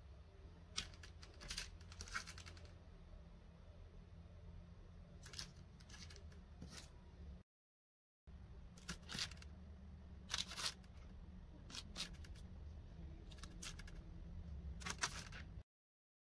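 Faint, scattered light clicks and taps as filled dough turnovers are handled, pierced underneath and set back on a baking tray, over a low steady hum. The sound drops out completely for a moment about halfway and again just before the end.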